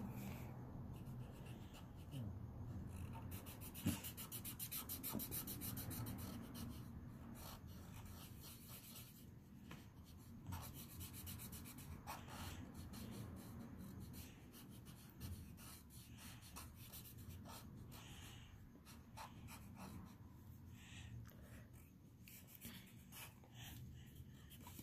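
Faint scratching of a felt-tip marker on paper in quick back-and-forth strokes as black ink is scribbled into a drawing.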